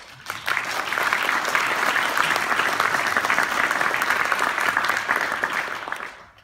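Audience applauding: a steady run of clapping that builds up about half a second in and dies away near the end.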